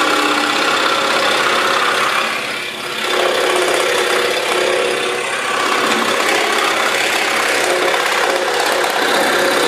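Pegas 21-inch scroll saw running and cutting 1/4-inch Baltic birch plywood: a steady, loud sawing noise from the reciprocating blade, dipping briefly about two to three seconds in.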